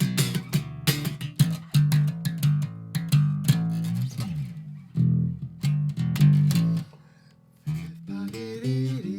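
Plucked guitar music over a bass line, a quick run of notes that drops out briefly about seven seconds in, then resumes with longer held notes.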